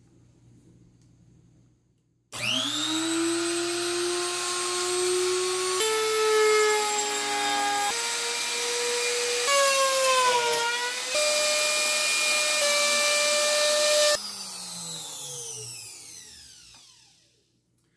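Compact palm router switched on about two seconds in, spinning up with a rising pitch, then running and cutting wood, its pitch shifting as the bit is guided through the block. It is switched off a couple of seconds before the end and winds down with a falling pitch.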